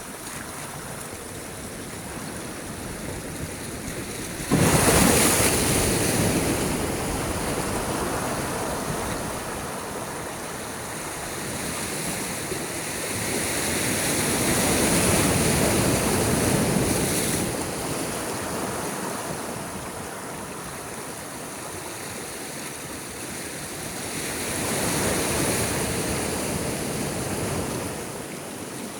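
Sea waves: a sudden crash of a breaking wave about four and a half seconds in, then two slower swells of surf that rise and fade.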